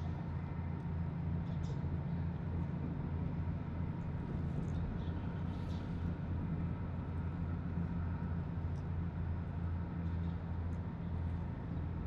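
Urban waterfront ambience dominated by a steady low mechanical hum, with a faint steady higher tone and a few faint, brief high chirps and ticks.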